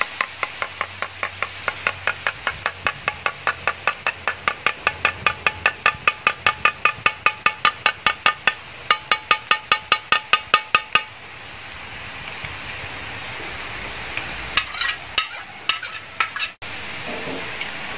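A perforated steel ladle of gram-flour batter tapped about four times a second to drop boondi into hot oil, over the steady sizzle of the frying oil. The tapping stops about eleven seconds in, leaving the sizzle, and a few more taps come near the end.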